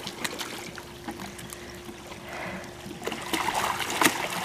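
Pool water splashing and lapping as a swimmer kicks along on a kickboard, the splashing growing louder about three seconds in. A faint steady hum runs underneath.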